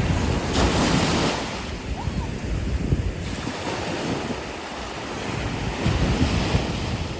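Sea waves washing onto a beach, a steady rush with two louder surges, one about half a second in and another near the end, and wind rumbling on the microphone.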